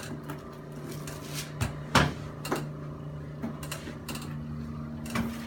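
A patient rolling over on a padded chiropractic adjusting table: several short knocks and bumps of the table, the loudest about two seconds in, over a steady low hum that shifts up in pitch near the end.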